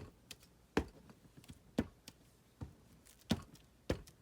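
Rubber stamp tapping on paper and a tabletop: about six short, sharp knocks at uneven intervals as the stamp is inked and pressed down.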